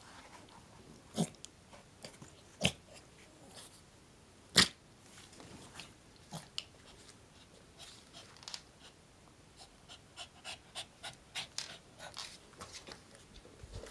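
A dog rubbing and rolling on a blanket-covered bed, making short sharp sounds. Three strong ones come in the first five seconds, the loudest about four and a half seconds in, and a quicker run of smaller ones follows near the end.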